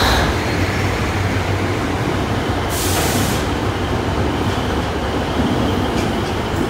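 Freight train of covered bogie hopper wagons rolling past at close range: a steady rumble of wheels on rail, with a short hiss about three seconds in.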